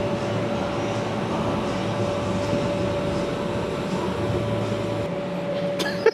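Mechanical bull ride running: the bull's drive motor and the electric air blower that keeps the inflatable arena up make a steady whir with a constant tone. A lower hum drops away about five seconds in, and there is a sharp click near the end.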